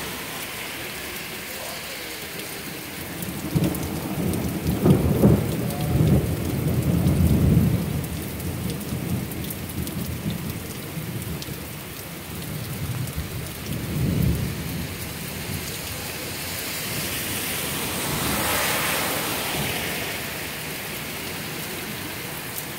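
Thunder rumbling after a bright lightning strike over steady rain. The rumble rolls in about four seconds in and is strongest from about five to eight seconds, with a shorter rumble about fourteen seconds in. The hiss swells for a couple of seconds near the end.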